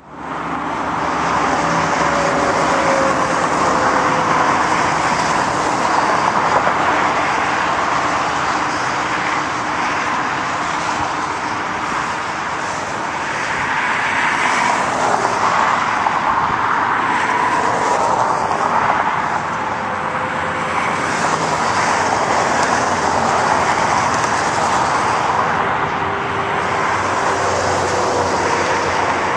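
Steady loud outdoor noise: road traffic mixed with the jet engines of a Boeing 737-800 approaching to land, with a few faint tones that slowly fall in pitch and fade.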